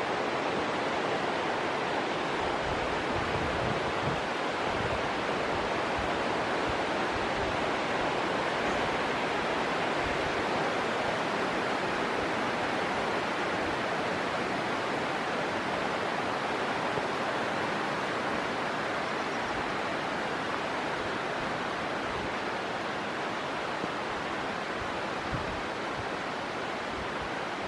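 Steady rushing of a river below the trail, a continuous even roar of water that eases slightly in the second half.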